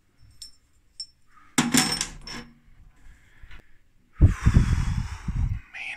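Heavy stainless-steel machine parts knocking and sliding against each other as the rheometer is taken apart: a few light clicks, then a heavy metal clunk and rumbling clatter about four seconds in that stops abruptly.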